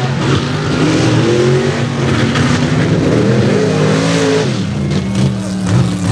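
Engines of two lifted mud racing pickup trucks revving hard as they race across a dirt course. Their pitch climbs and falls several times, then runs more evenly near the end, with dirt spraying off the tyres.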